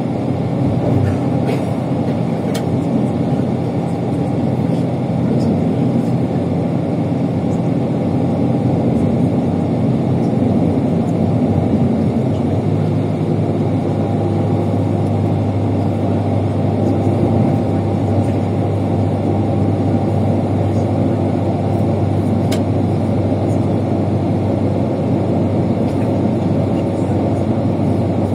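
Bus engine running with road noise while the bus drives, a steady hum whose note shifts about halfway through. A few faint clicks or rattles come through.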